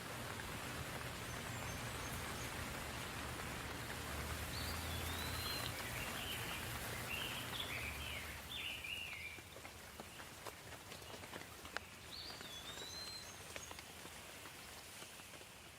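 Steady light rain falling, a soft even hiss with scattered drips that eases a little about nine seconds in. A bird calls over the rain with short rising-and-falling chirps, a run of them in the middle and another call near the end.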